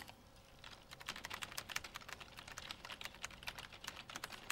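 Fast typing on a computer keyboard: a quick run of key clicks that starts about a second in.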